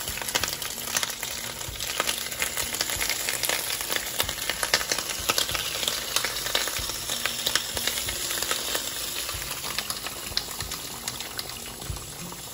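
Tomato stew with crab simmering in a pot on the stove: a steady sizzling crackle with many small pops.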